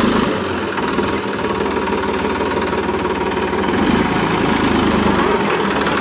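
Massey Ferguson 9500 tractor's diesel engine idling steadily.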